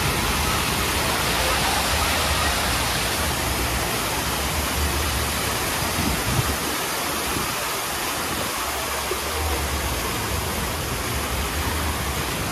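Decorative fountain water: a row of vertical jets splashing down and a cascade spilling over a stone ledge into a pool, making a steady rushing sound.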